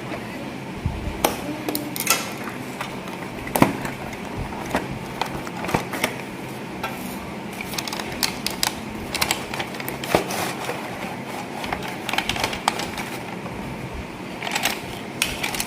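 Toy box being unboxed: irregular clicks, taps and rustling as packaging is opened and plastic toy track parts are taken out and handled.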